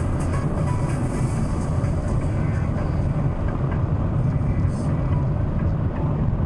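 Steady road and engine noise inside the cabin of a Chevrolet Astra cruising at highway speed, about 100 km/h: a low, even rumble with tyre hiss above it.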